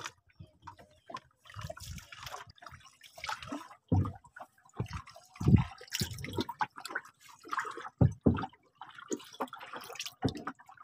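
Water splashing and dripping in a boat's flooded fish hold, in irregular small splashes with a few dull knocks.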